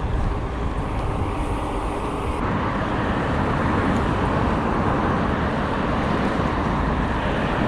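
Steady road traffic noise along a city street, heard while riding a bicycle.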